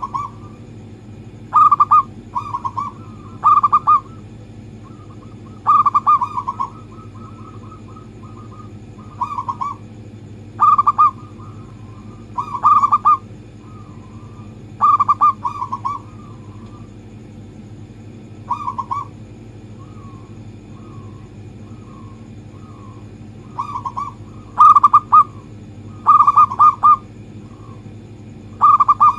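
Zebra dove (perkutut) cooing in repeated phrases of short trilled coos, each phrase lasting about a second, with pauses of a few seconds between them. A steady low hum runs underneath.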